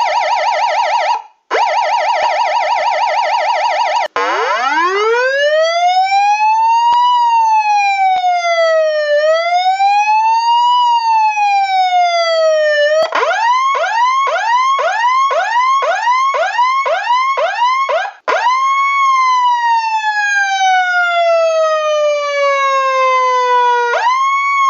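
A run of electronic emergency-vehicle siren patterns. First a rapid warble, broken by a short gap. Then a slow wail rising and falling twice, then a fast yelp of about two rising sweeps a second, then another wail that climbs, falls slowly and snaps back up near the end.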